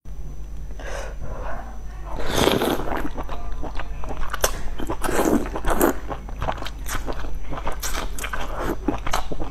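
Close-up eating sounds: slurping and wet chewing of sliced fatty beef in sesame sauce, with many small mouth clicks and the longest, loudest slurps about two and a half and five seconds in.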